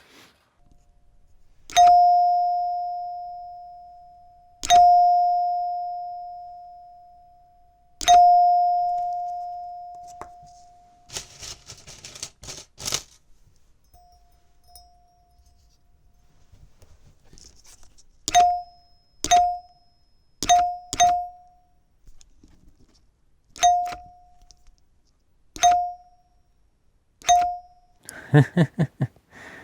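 Electric door chime run from a 9-volt battery, its solenoid plunger striking one tone bar. The first three strikes each ring on and fade over two to three seconds. After some handling noise, several more strikes on the same note die away almost at once, damped by springs resting on the bar.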